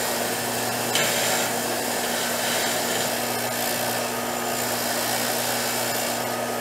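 Bench grinder running with a wire wheel brushing the leftover rust off a steel bolt that has been soaked in vinegar: a steady motor hum under a continuous scratchy hiss of the wire bristles on the metal.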